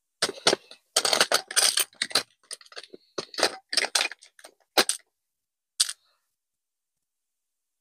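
A quick run of sharp clicks and clatters from small hard objects being handled, ending about five seconds in, with one last click just before six seconds.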